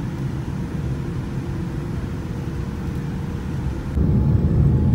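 Cabin noise inside a jet airliner taxiing on the ground: a steady low rumble of engines and air systems with a faint steady hum. It steps up louder about four seconds in.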